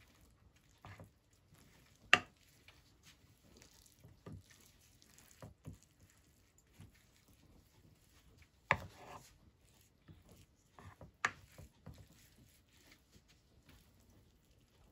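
Quiet food-preparation handling sounds: scattered soft taps and squishes, with three sharper clicks about two, nine and eleven seconds in.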